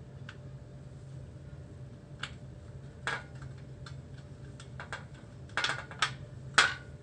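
Scattered small clicks and light taps, about ten in all at irregular intervals, the loudest near the end, from handling the opened monitor's parts and its display cable connector. A steady low hum runs underneath.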